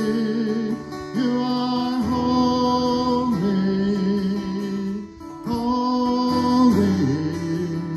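A man singing a slow worship song over his own strummed acoustic guitar, holding long notes, with a brief break about five seconds in.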